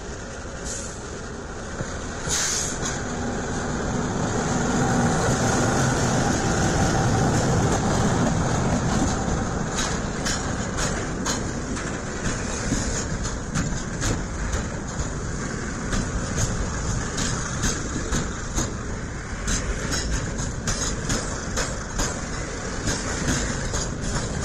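A CC 206 diesel-electric locomotive passes close by, its engine rumble swelling and then easing. The container flatcars follow, their wheels clicking over the rail joints in a steady clickety-clack.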